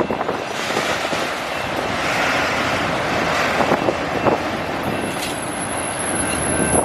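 Autorack freight cars rolling past on the rails: a steady rumble and clatter of steel wheels, with many short knocks. A thin, high-pitched steady squeal comes in about five seconds in.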